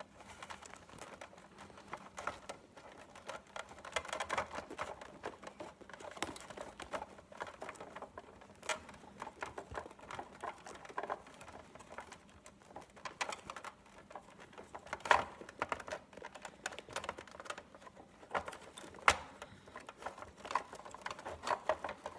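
Small plastic mechanism parts of a Big Mouth Billy Bass being handled: irregular light clicks and taps, with a few sharper clicks in the second half.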